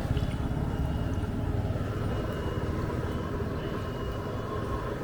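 A motor vehicle engine running nearby, its low pulsing rumble slowly fading.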